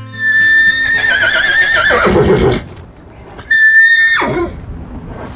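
A horse whinnying twice: a long call that holds a high pitch, quavers, then falls away, and a shorter whinny about three and a half seconds in that drops off sharply.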